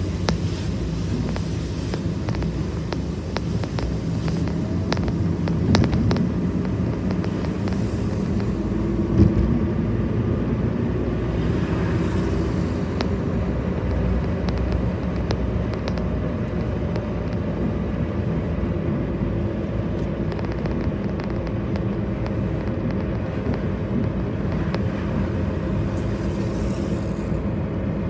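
Road noise heard from inside a moving car: a steady low rumble of engine and tyres, with a few light knocks, the loudest about nine seconds in.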